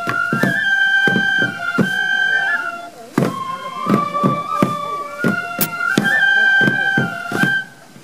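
Shishimai festival music: Japanese bamboo transverse flutes playing a slow melody of long held notes, over frequent strokes on the lion dancers' waist drums. The flute phrase breaks off about three seconds in and starts again.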